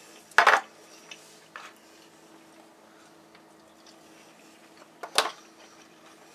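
Metal kitchen tongs clacking and knocking against a wooden cutting board. There is a loud clatter about half a second in, a lighter knock a second later, and another sharp clack near the end, with a faint steady hum in between.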